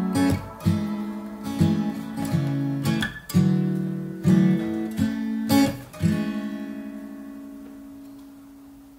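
Background music on acoustic guitar: a run of picked and strummed chords. A last chord about six seconds in rings out and fades away.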